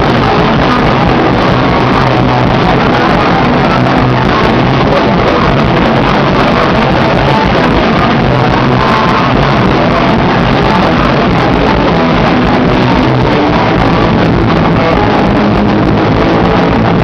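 Live rock band playing loudly and without a break, with electric guitar.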